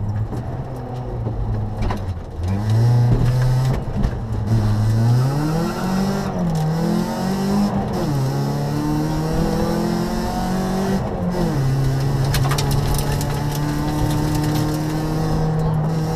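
Rally car's engine heard from inside the cabin under hard acceleration: the revs climb a few seconds in and drop sharply at each gear change, then run steady for the last few seconds.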